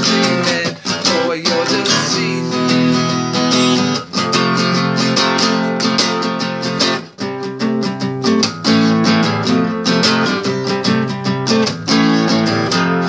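Dreadnought steel-string acoustic guitar strummed in a steady rhythm, the chords ringing on between strokes.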